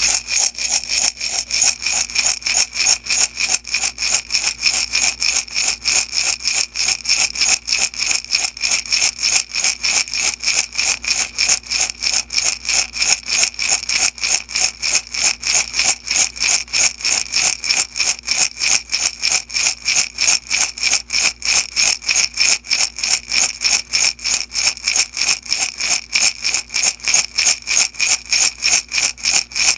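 Beads shaken steadily back and forth in a glass jar: an even, rhythmic rattle of about three to four shakes a second, the beads hissing and clicking against the glass.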